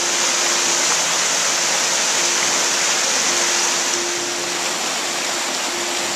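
Small rocky brook rushing and splashing over boulders: a steady, loud hiss of fast-running water.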